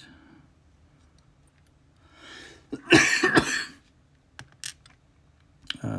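A person breathes in and then coughs, a short loud fit of a few coughs about three seconds in. Two light clicks follow.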